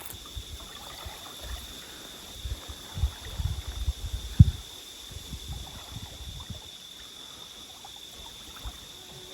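Small waves lapping and trickling against the lake shore, with a few low knocks and bumps in the middle, one sharp one at about four and a half seconds. A faint steady high tone sits over it.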